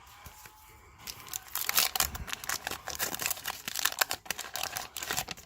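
Wax paper wrapper of a 1991 Fleer basketball card pack crinkling and tearing as it is opened, starting about a second in with a dense run of crackles.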